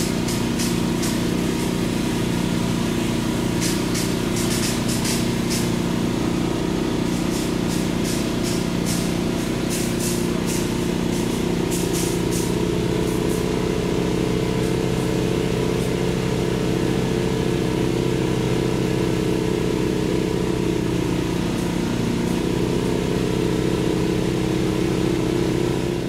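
An engine running steadily. Its note shifts up a little about halfway through and dips briefly near the end, with scattered sharp clicks in the first half.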